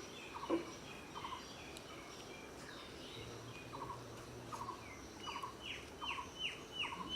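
Village birds calling: a short note repeats about every 0.7 s among scattered high chirps, and from about five seconds in a run of quick falling calls comes about two to three times a second. A brief low thud sounds about half a second in.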